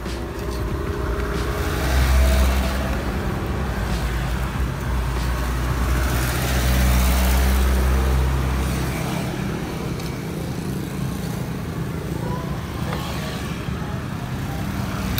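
Street traffic with a motor vehicle's engine running close by, a low rumble that is loudest from about two seconds in until about nine seconds, then fades.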